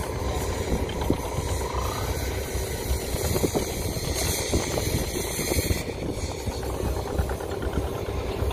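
Fishing trawler's diesel engine running steadily, a low throb with small irregular knocks.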